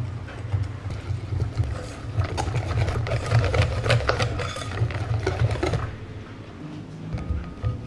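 Wire balloon whisk beating flour into a thick egg-yolk batter in a glass bowl: a fast rhythmic knocking with the wires clicking and scraping against the glass. The clicking is loudest in the middle and eases off near the end as the batter turns smooth.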